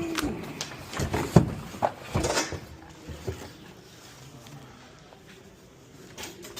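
Handling noise from a boxed bicycle and its packaging: several sharp knocks and clicks with rustling in the first couple of seconds, then quieter shuffling.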